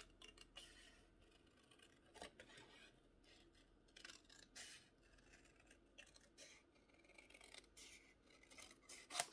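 Scissors cutting cardstock: faint, irregular snips and paper rustle.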